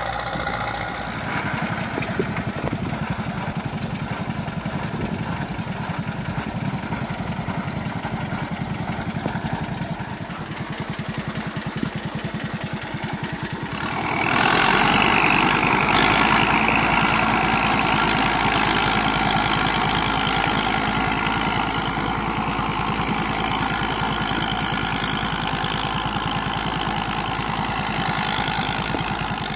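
Massey Ferguson 185 diesel tractor engine running steadily under load while pulling a rotavator through dry field soil, with a fast even beat. It gets louder about halfway through as the machine passes close.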